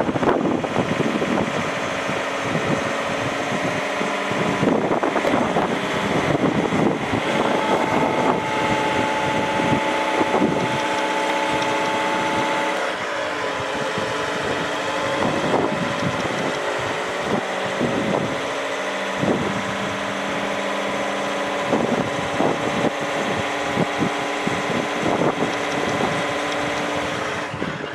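Diesel engine of a Linde H45D forklift running as its hydraulics turn a fork rotator attachment. The engine's tone shifts up and down in steps, with occasional short knocks.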